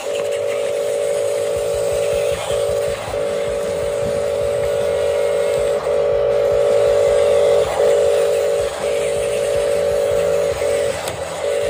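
Small electric motor of a radio-controlled construction toy whining at a steady pitch, with brief dips every second or two.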